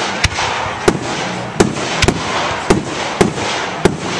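Aerial fireworks bursting in a rapid barrage: about seven sharp bangs in four seconds, with a steady hiss between them.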